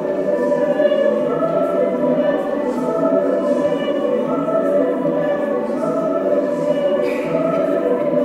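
Mixed choir singing sustained, slowly shifting chords, with a brief sibilant hiss from the singers about seven seconds in.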